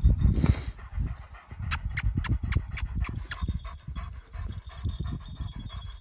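Kangal shepherd dog panting: a breathy rush, then a quick run of about seven pants at roughly four a second, with a low rumble underneath.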